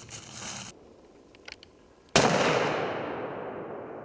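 A single hunting-rifle shot just over two seconds in, its report echoing through the forest and dying away over about two seconds.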